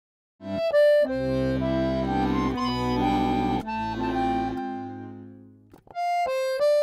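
Victoria piano accordion playing a melody over sustained bass chords. It starts after half a second of silence, fades out around five seconds in, and a new phrase begins near the end.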